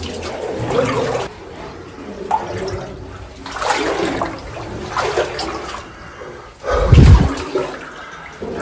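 Water sloshing and splashing in surges about every second, in a hot-spring cave, with a loud low thump about seven seconds in.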